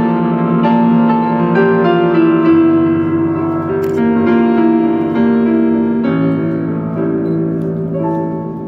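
Mixed choir singing a slow choral arrangement with digital piano accompaniment, in held chords that get quieter near the end.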